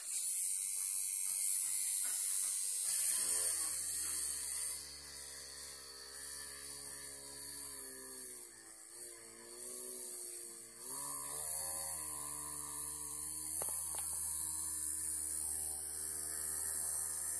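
Small DC motor of a homemade mini drill, run from a battery eliminator, spinning a bit and drilling into a board. Its whine wavers, the pitch sagging and recovering as the bit bites.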